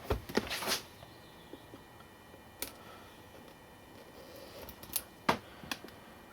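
CRKT Pikes Peak knife slitting the plastic shrink-wrap on a tablet box. There are a few scraping strokes in the first second, then scattered light clicks and crinkles as the wrap and box are handled.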